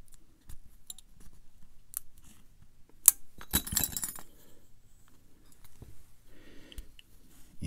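Small metal clicks and clinks from a brass pin-tumbler lock cylinder being handled as a shim goes in and the plug is slid out. One sharp click about three seconds in, followed by a brief scrape.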